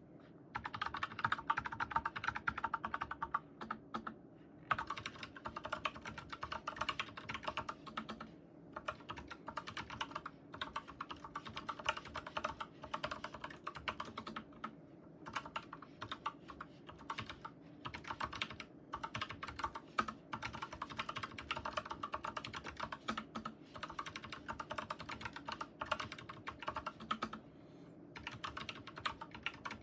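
Fast, continuous typing on a modified mechanical keyboard with prelubed Gateron G Pro 3.0 yellow linear switches, damped with nitrile rubber O-rings and M5 stainless washers, tuned for a deep, muted 'thocky' key sound. The rapid keystrokes stop briefly a few times.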